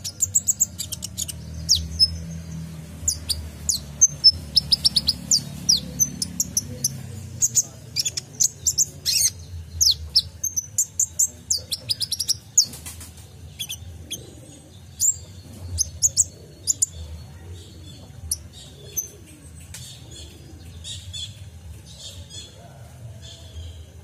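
A male Van Hasselt's sunbird (kolibri ninja) singing: a fast, busy run of short, high, sharp chirps and twitters that thins out toward the end, over a faint low rumble.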